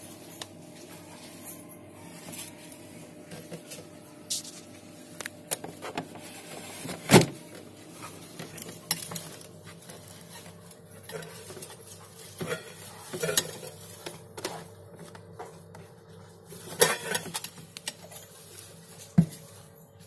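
Refrigerator running with a steady hum, under scattered knocks and clinks of stainless steel bowls on the fridge shelves; the loudest knock comes about seven seconds in, with others near the end.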